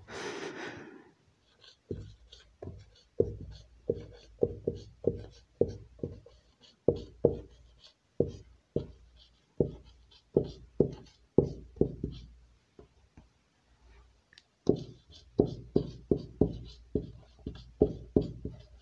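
Marker pen writing on a whiteboard: a run of short strokes, about two or three a second, with a pause of a second or two about two-thirds of the way through.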